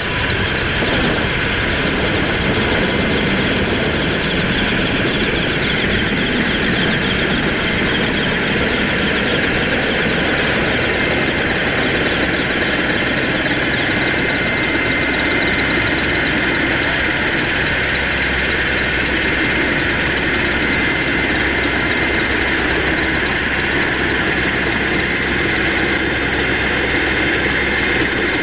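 Military helicopter's turbine engines and rotor heard from inside the cabin with the side door open: a loud, steady rumble and rush with a constant high whine.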